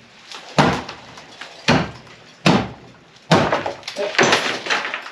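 Sledgehammer blows into a lime-plastered timber-lath (tabique) wall, about one a second and quickening near the end. Each is a sharp impact followed by a short rush of falling plaster and broken lath.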